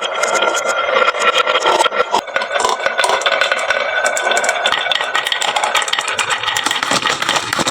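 Many marbles clattering and clicking as they roll down a wooden marble-run slope and pile into toy trucks, a dense, continuous rattle of small hard knocks.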